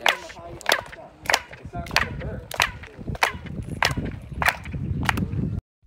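Hand claps in front of the stone stairway of El Castillo, Chichen Itza's pyramid, where clapping is known to echo back off the steps as a chirp. There are nine sharp claps, evenly spaced about two-thirds of a second apart, over a low rumble. The sound cuts off suddenly near the end.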